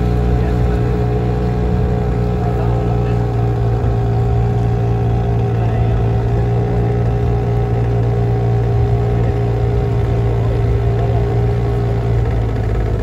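Motorboat engine running at a steady speed, its pitch holding constant throughout.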